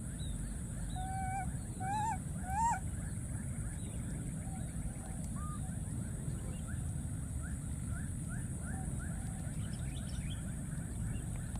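Baby macaque calling: short high, rising cries, three in a row growing louder about two seconds in, and a fainter one a few seconds later, over a steady high hiss.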